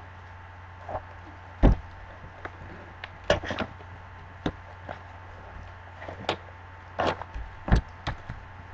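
Cardboard trading-card box being opened and its boxed packs set down on a table: a string of irregular knocks and taps, with two louder thuds, one near the start and one near the end.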